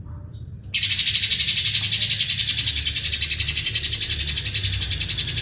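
Lovebird giving a long, harsh, very rapid chattering trill. It breaks in suddenly less than a second in and goes on without a pause.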